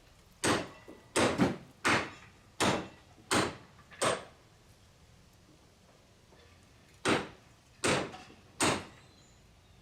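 A run of sharp knocks at roughly even spacing, about seven in a row, then three more after a pause of a few seconds.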